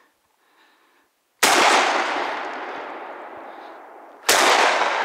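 Two shotgun shots, about three seconds apart, each followed by a long echo that fades slowly.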